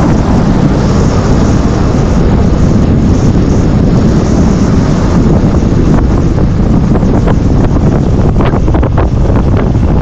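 Heavy wind buffeting on the microphone of a moving off-road motorcycle, a loud steady rush with the bike's running noise underneath and a few short knocks near the end.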